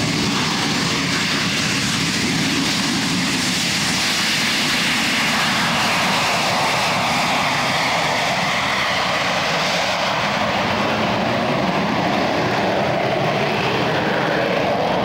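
AV-8B Harrier's Rolls-Royce Pegasus turbofan at takeoff power through a short takeoff roll and climb-out: loud, steady jet noise. The high hiss falls away after about ten seconds as the jet climbs away.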